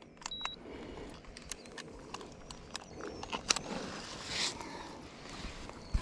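Handling noises as a striped bass is hooked onto a handheld digital hanging scale: scattered light clicks and knocks, with a short electronic beep from the scale about half a second in.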